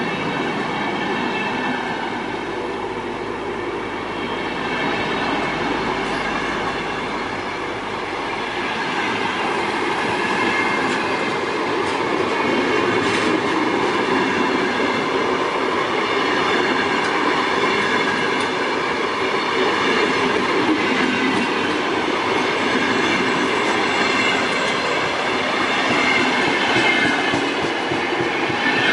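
Passenger coaches of a departing InterCity train rolling past close by, wheels clattering over the rail joints. The sound grows gradually louder as the train gathers speed.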